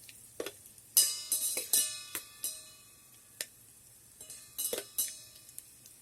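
Mustard seeds and spices crackling in hot mustard oil inside an electric kettle: irregular sharp pops and metallic ticks, in a burst about a second in and another near five seconds in.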